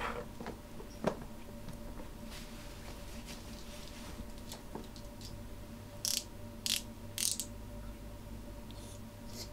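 A cardboard phone box being picked up and handled: a few small knocks and clicks, the sharpest about a second in, then three short hissing rustles in quick succession past the middle, over a low room hum.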